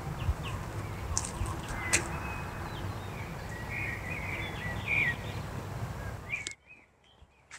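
Small birds chirping in short twittering calls over a steady low rumbling noise. The rumble cuts off abruptly about six and a half seconds in, leaving only faint chirps.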